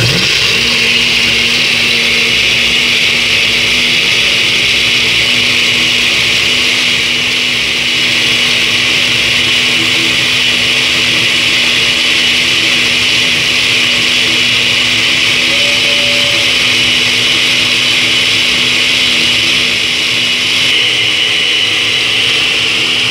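Countertop blender with a glass jar switched on and running steadily at speed, grinding dried guaje seeds in broth into a purée. It gives a loud, even motor whine.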